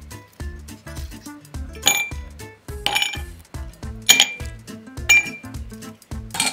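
Ice cubes clinking as they drop into glass tumblers, five times about a second apart, over background music with a steady beat.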